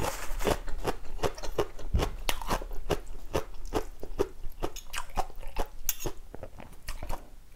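Crunchy chewing of a fresh lettuce leaf close to the microphone: a steady run of crisp crunches, about four a second, thinning out near the end.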